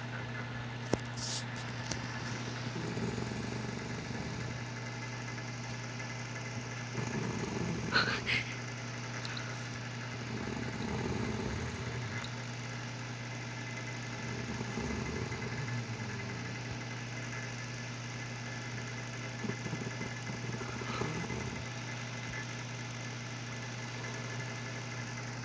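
An elderly woman snoring in her sleep, one rough snore every four to five seconds, over a steady low hum.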